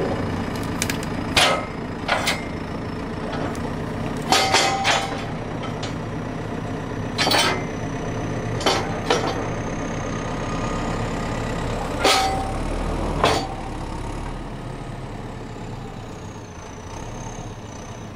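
JCB backhoe loader's diesel engine running steadily, with about eight sharp clunks as its pallet forks are worked around the stone pallets. The engine picks up briefly about two-thirds of the way through.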